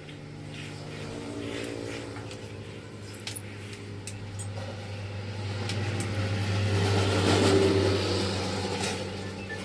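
A vehicle engine running with a steady hum. It grows louder to a peak about seven to eight seconds in, then eases off, with a few light clicks over it.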